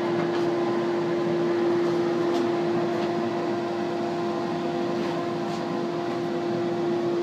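Suction motor of a bowl-refacing lathe's vacuum chuck running with a steady hum and one clear held tone, holding the lawn bowl in place on the chuck.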